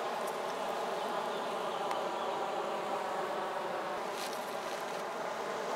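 A flying insect buzzing steadily close by, one continuous even hum with no break.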